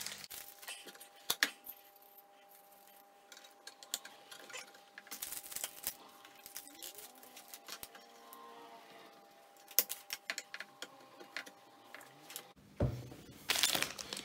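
Small handling sounds: scattered clicks, taps and rustles as plastic swab packaging, a marker pen and a brass trumpet are picked up and moved on a tiled tabletop, over a faint steady hum that stops near the end.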